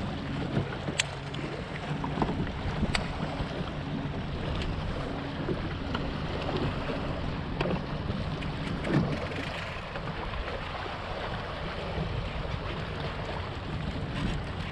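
Wind on the microphone and water lapping around a fishing kayak: a steady hiss of noise with a few sharp ticks and a faint low hum through the first half.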